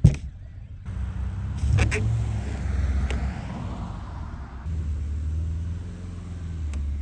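Chainsaw engine running at low speed with a low drone, with a sharp knock at the very start and short clicks about two seconds in and near the end.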